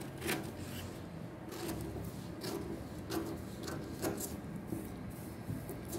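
Scissors snipping through a paper sewing pattern along a curved line, a steady series of short crisp cuts.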